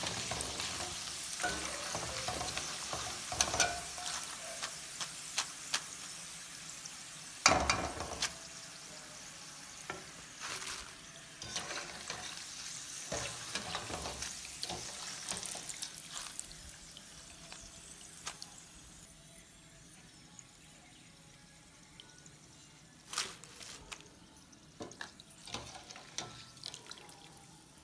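Deep-fried nendran banana chips sizzling softly in hot oil in a steel pan, the sizzle fading away as the bubbling dies down, a sign the chips are fried through. Clinks and scrapes of a wire skimmer against the pan come through it as the chips are lifted out, with a loud knock about seven seconds in.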